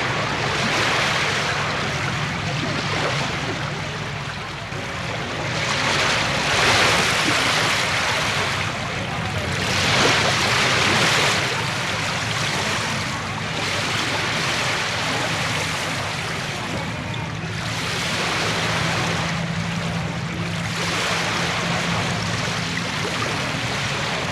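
Calm sea waves washing onto a beach, a continuous wash that swells and recedes every few seconds. The biggest surges come about six and ten seconds in, over a faint steady low hum.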